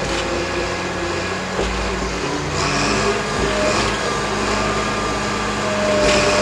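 Cat D6K crawler dozer's six-cylinder diesel engine running under load as the machine pushes dirt with its blade. The engine note shifts about two and a half seconds in, and three short higher-pitched bursts come over it.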